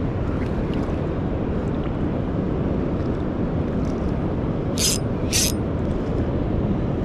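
Steady rumble of wind on the microphone and sea surf. About five seconds in come two short, sharp hissing bursts half a second apart.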